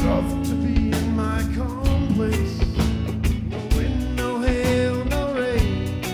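Band playing an instrumental break: a lead melody line that slides and bends in pitch over guitar, bass and regular drum-kit beats.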